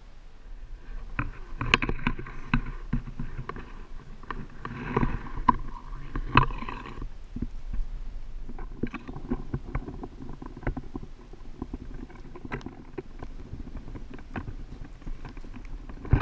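Close knocks, taps and muffled scraping on a camera as an African penguin pecks and pushes against it. The knocks are busiest and loudest in the first half.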